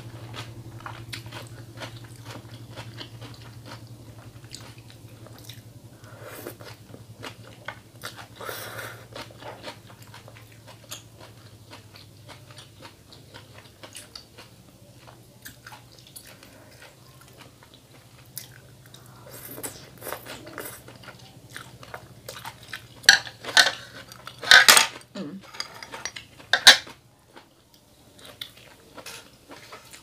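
Close-miked eating: chewing and small mouth sounds, with chopsticks clicking against a glass bowl of noodle soup. A run of louder, sharp eating noises comes near the end, over a low steady hum that fades out.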